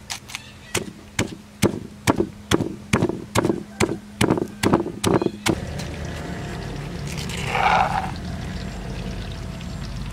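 Stone pestle pounding sugar, red chilies and garlic in a stone mortar, about two strikes a second. After about five and a half seconds the strikes stop and give way to a rougher grinding and scraping as the paste is worked, with a metal spoon scraping against the stone partway through.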